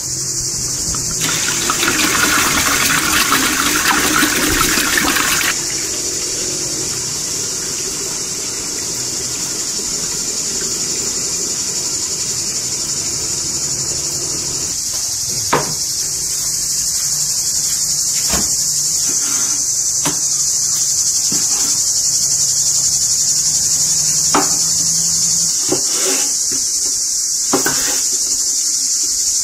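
Steady high-pitched insect chorus throughout. Over it, water pouring from a clay jug into a metal cooking pot, loudest near the start and ending about halfway. In the second half come scattered sharp knocks of a knife cutting lamb liver on a wooden board.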